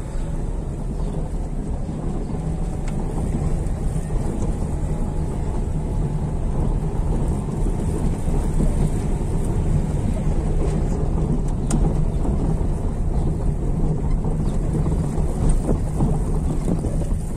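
Car moving slowly over a paving-block street: steady road rumble from the tyres and engine, growing a little louder partway through.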